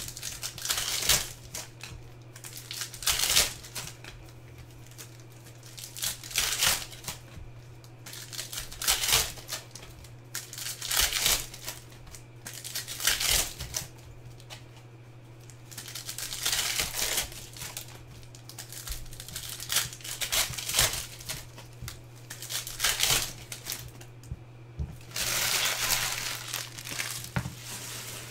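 Trading-card pack wrappers crinkling and tearing as basketball card packs are opened by hand, in repeated bursts every couple of seconds. A steady low hum runs underneath.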